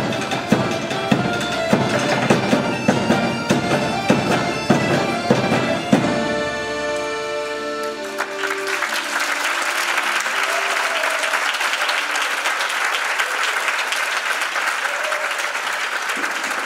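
Tuna ensemble of guitars, mandolins, accordion and double bass playing rhythmic music with strong regular beats, closing on a held chord about six seconds in. Audience applause follows from about eight seconds on.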